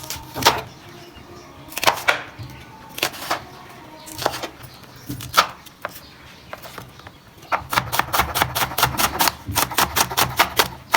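Knife chopping onion on a cutting board: a few separate cuts, then from about seven and a half seconds in a fast, steady run of chops, several a second.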